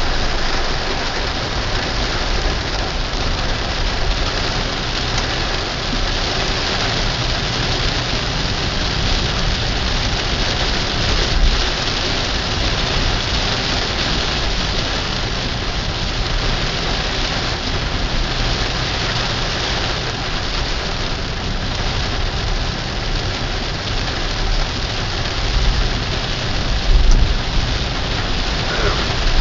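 Heavy rain pelting a car's windshield and roof, heard from inside the cabin as a steady dense hiss, over the low rumble of the car moving along a wet road. A few low thuds stand out near the end.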